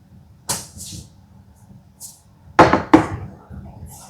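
A few sharp knocks on wood: one about half a second in, then two louder ones close together near the end, as boards are joined into an L shape.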